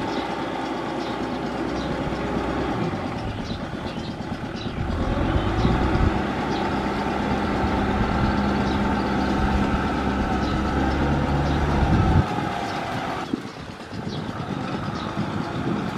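Kubota M6040SU tractor's diesel engine working under load as its rear rotary tiller churns wet paddy mud. The engine grows louder about five seconds in, holds steady, then eases off about twelve seconds in.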